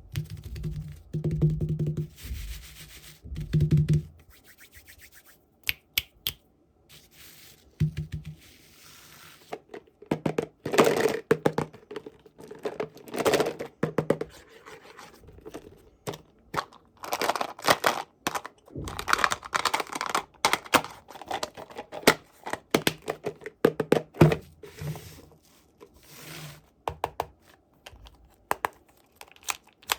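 Toy packaging being handled and torn open by hand: irregular tearing, crinkling and scraping with small clicks, and a few dull knocks near the start.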